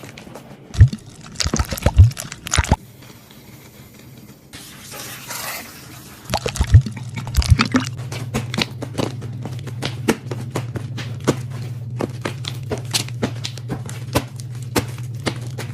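Slime being squeezed and worked by hand: wet squelching with many small sharp pops and clicks, which become a rapid steady run from about six seconds in, where a low steady hum also starts.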